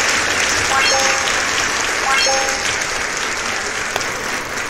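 Applause, with a quick chime of short ringing notes twice, a little over a second apart, and a single sharp click near the end.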